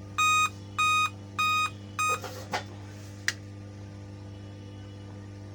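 Dell Inspiron 3542 laptop motherboard giving four short beeps about half a second apart, a warning sounded because no CMOS battery is fitted. Two sharp clicks follow, over a steady low hum.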